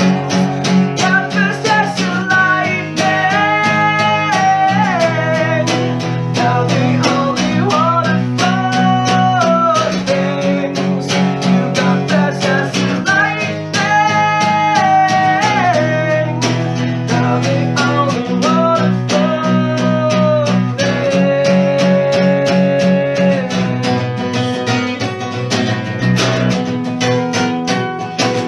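Acoustic guitar strummed in a steady rhythm, with a melody of long held, gliding notes over it.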